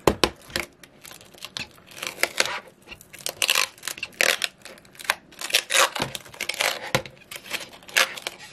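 Protective plastic film being peeled off the face of an LED light pad and crinkling in the hands: an irregular run of crackles, with a sharp crackle right at the start. The film is stuck on firmly.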